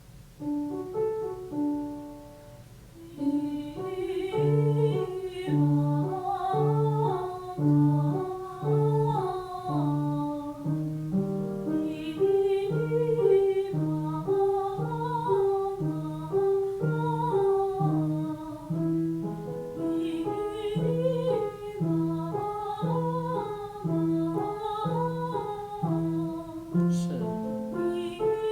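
Piano accompaniment playing a vocal warm-up exercise in short repeated phrases over a regular bass note, with a woman singing the exercise along with it.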